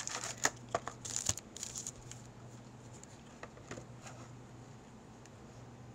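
Foil wrapper of a hockey card pack being crinkled and torn open: a burst of crackling in the first two seconds, then only faint rustles over a steady low hum.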